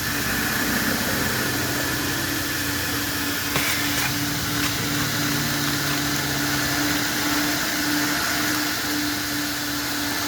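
Coin-operated car-wash vacuum running steadily, its hose pulling air with a constant hum and hiss. A couple of light clicks come about three and a half and four seconds in.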